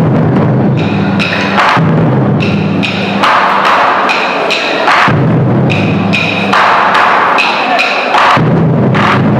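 An ensemble of taiko drums struck with wooden bachi sticks in a fast, driving rhythm. Passages of deep booming strokes on the drumheads alternate with runs of sharp wooden clicks.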